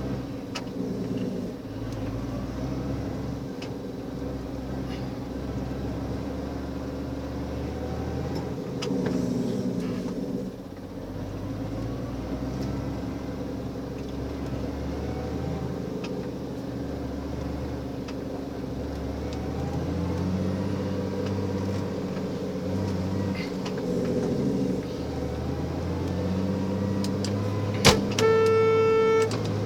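Car engine and cabin noise heard from inside a car creeping along in slow traffic, the engine pitch rising and falling a little with the throttle. Near the end, a sharp click and then a steady tone lasting about a second.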